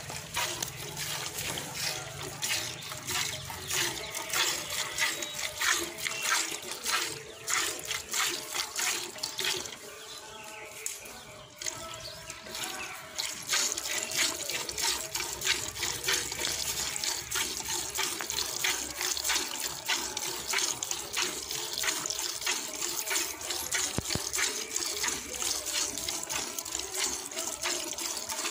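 Water buffalo being hand-milked into a steel bucket: rhythmic squirts of milk hissing into the pail, with a brief lull a little past a third of the way through.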